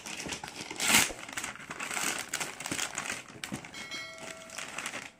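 Brown paper mailer bag being torn open and crumpled by hand, with a loud rip about a second in. A short bell-like chime sounds near the end.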